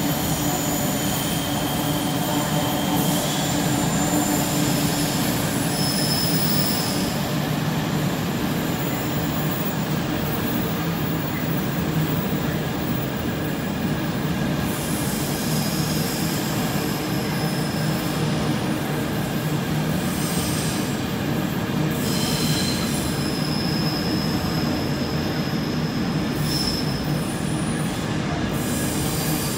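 Container freight train's loaded flat wagons rolling steadily past, a continuous low rumble of wheels on rail. Thin high squeals from the wheels come and go several times.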